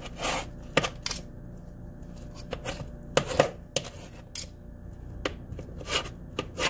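Kitchen knife cutting cooked chicken and onion on a sheet pan, steadied with a fork: irregular sharp taps and clinks of the blade against the pan, a dozen or so spread through.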